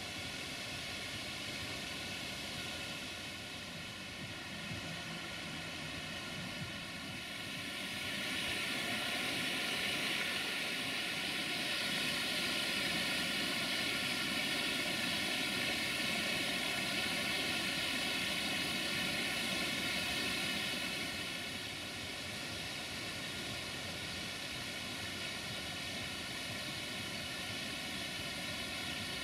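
Vadu Crișului waterfall: steady rushing of falling water, louder for a stretch in the middle.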